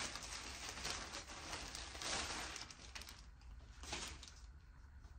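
Thin plastic mailer bag crinkling and rustling as it is handled. It is loudest about two seconds in, eases off, and gives another short rustle near the end.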